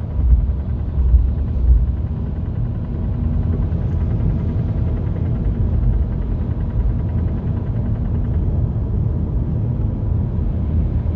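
Volkswagen Golf Mk6 running with a steady low rumble and a knocking noise: a few heavy low thumps in the first two seconds. The knock is the fault the recording was made to show.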